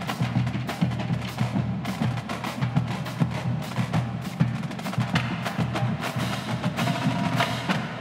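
A marching drumline plays a fast, dense percussion passage: rapid snare and tenor drum strokes over pulsing bass drums.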